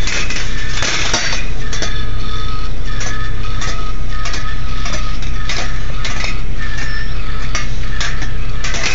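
Steel balls rolling along the stainless steel wire tracks of a rolling ball sculpture, with frequent sharp metallic clicks and clinks as they drop and strike the wire and small metal cups, and a faint ringing tone partway through.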